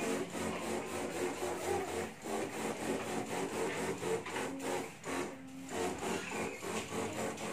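Electric backpack sprayer's pump running with a steady rasping chatter while disinfectant is sprayed from the wand.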